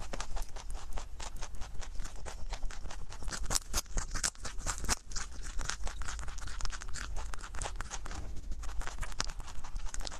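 Rabbit chewing carrot pieces close to a microphone: a rapid, irregular run of crisp crunching clicks.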